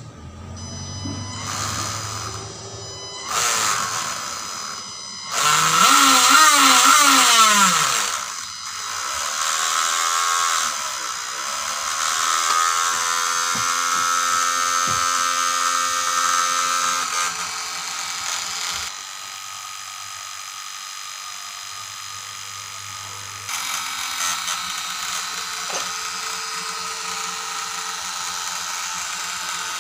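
Small electric motor in a homemade PVC-pipe RC submarine motor housing, spinning the propeller. Its whine rises and falls in pitch several times in the first ten seconds as the speed changes, then holds steadier, dropping in level about 19 seconds in and picking up again about 23 seconds in.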